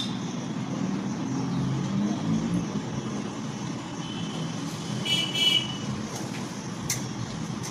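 Steady low background rumble with a short high-pitched toot about five seconds in.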